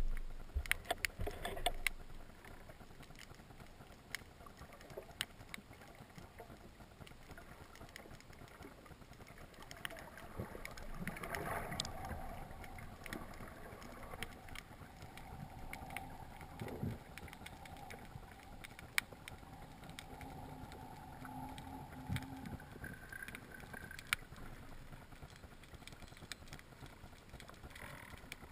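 Faint underwater ambience heard through a camera housing: scattered sharp clicks and crackles, with a steady machine-like hum that comes in about eleven seconds in and fades out after about twenty-three seconds.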